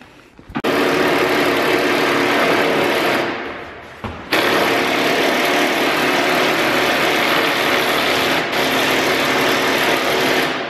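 A handheld power tool running at steady full speed in two long runs, about three seconds and then about six seconds, with a short pause between.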